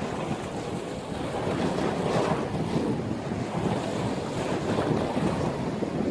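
Storm wind buffeting the microphone over breaking sea waves: a steady, rough rushing noise.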